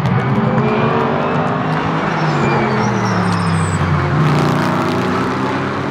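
A pack of GT race cars, led by a McLaren and a Camaro, running through a corner together: several engines at once, their pitch rising and falling as the cars lift, shift and accelerate. The sound swells about four seconds in as the cars come closest.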